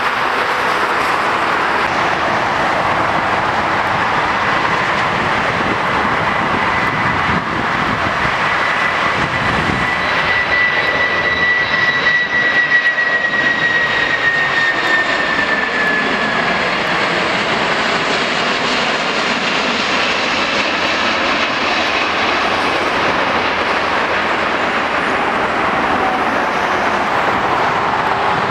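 Airliner's engines as it flies past: a steady loud rush with a high whine that slowly falls in pitch after the midpoint, and a lower whine sliding down near the end.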